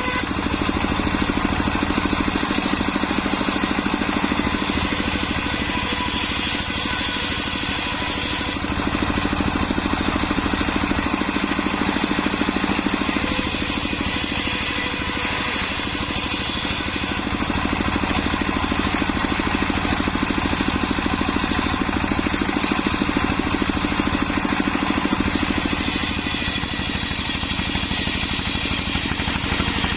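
Homemade circular saw rig running steadily while ripping sengon wood into rafters. A higher-pitched sound comes in for a few seconds at a time, three times.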